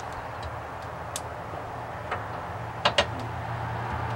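A few sharp metal clicks and knocks as a steel cross-member is worked into place on a truck frame, with two louder knocks close together about three seconds in, over a steady low hum.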